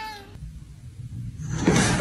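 A cat's meow, slightly falling in pitch, ends just after the start. About a second and a half in, a loud rushing noise swells up and carries on.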